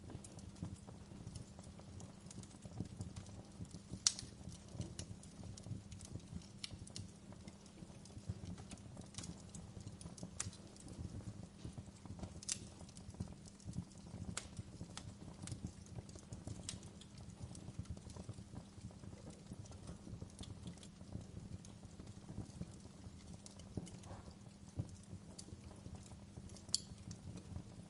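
Fireplace crackling: irregular pops and snaps over a steady low rumble, with a sharper pop about four seconds in and another near the end.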